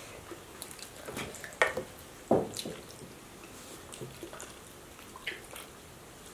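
Wet eating sounds from fried fish eaten by hand: a handful of short smacks and clicks of lips and chewing, the loudest a little over two seconds in.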